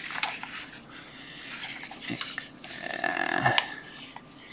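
Paper pages of a book being leafed through and rubbed by hand: an uneven rustling with small flicks and clicks of paper.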